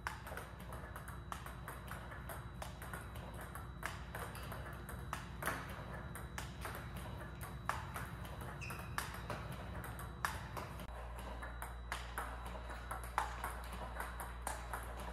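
Table tennis balls being fed by a ball robot and struck with a bat: quick sharp clicks and taps of ball on bat and table, about two a second. A low steady hum lies under them.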